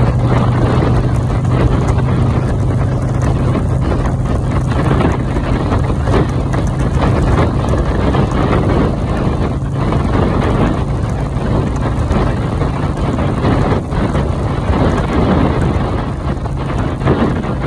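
Heavy wind buffeting on the microphone at highway speed in the open air, over a steady low engine drone.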